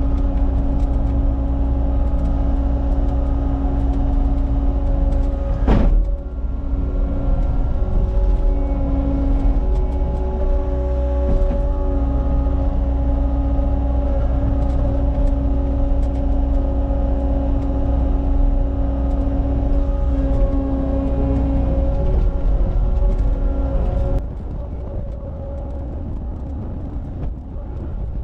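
Cat 279 skid steer's diesel engine running steadily with a constant whine, with one sharp knock about six seconds in. The engine sound drops to a lower level about 24 seconds in.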